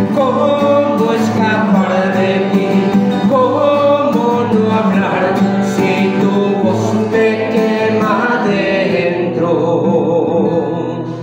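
Spanish-language Catholic religious song, a voice singing over instrumental backing; the singing ends near the end and the music fades out.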